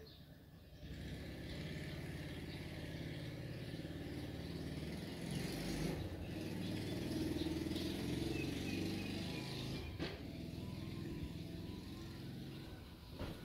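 A motor vehicle's engine rumble swells about a second in, is loudest midway, and eases off after about ten seconds.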